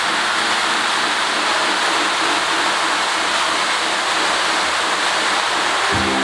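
Electric toy train set running on its metal track: a steady, even rushing noise. Near the end several steady tones start together.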